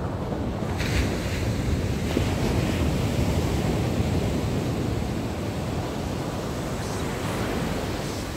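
Surf breaking and washing up a sandy beach, with wind buffeting the microphone. The wash swells about a second in and slowly eases off toward the end.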